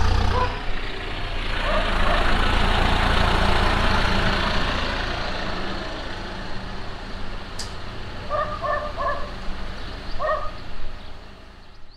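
A vehicle passes, its noise swelling and then fading, while a dog barks a few times, including a quick run of three barks near the end.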